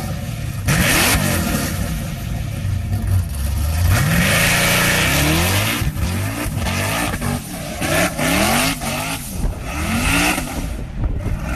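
An engine revving up and down again and again, its pitch rising and falling with each blip of the throttle.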